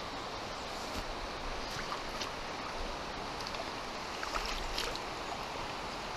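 Steady rush of river water, with a few small splashes as a hooked trout thrashes at the surface and is scooped into a landing net.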